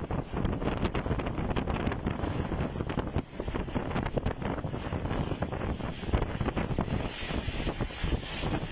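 Strong gusting wind in a heavy rainstorm, buffeting the microphone with uneven rushes over the rain's hiss. A higher hiss joins near the end.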